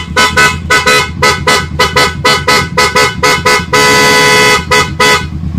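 Aftermarket PIAA horn fitted to a Kawasaki Ninja 650, sounded in a quick run of short toots, about four a second, then held for one long blast of about a second, then two more short toots.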